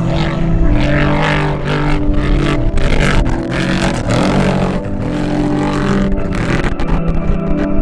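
Off-road race truck engine running hard and revving at speed.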